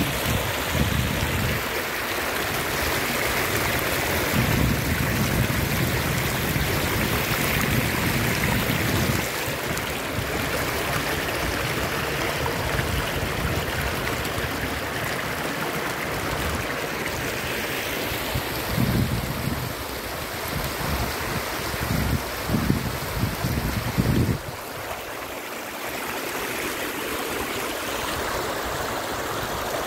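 Shallow river water rushing and splashing through the gaps between granite stepping stones in a steady rush. Bouts of low rumbling come and go over it in the first third and again about two-thirds of the way through.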